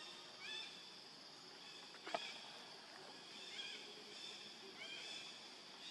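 Baby pig-tailed macaque giving short, high-pitched squeaking calls, repeated every second or so. A single sharp click about two seconds in.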